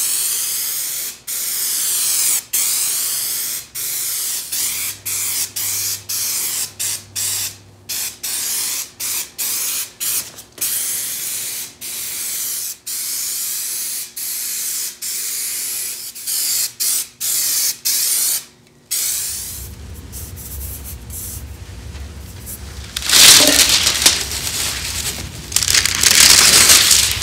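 Aerosol spray contact cement hissing from the can in many short bursts with brief breaks, as foam and dashboard are coated. About two-thirds of the way through a low hum comes in, and near the end come two louder hisses.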